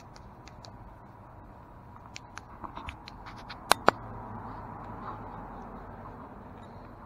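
Light taps and clicks of a wet agate and a flashlight being handled, with two sharp clicks in quick succession about halfway through, the loudest sounds.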